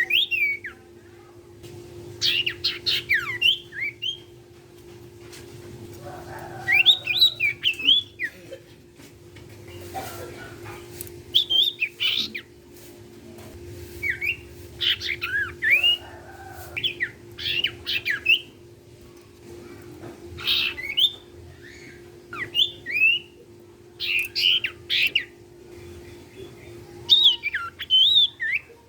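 A sirtu cipow, a type of iora kept as a songbird, singing in short bursts of quick, chattering whistled notes, a new phrase every couple of seconds. A steady low hum runs underneath.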